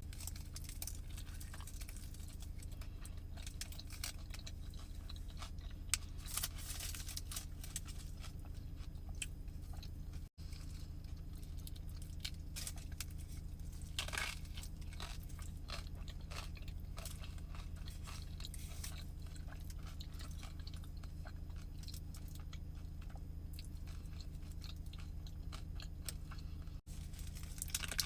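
Close-up chewing and biting of a Chipotle burrito, with many small crackling mouth sounds over a steady low hum. The sound drops out briefly twice.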